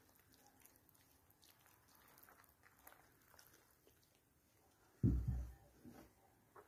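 Faint soft dabbing and rustling of a pastry brush spreading oil over layered sheets of dough, with a short low sound about five seconds in, the loudest thing.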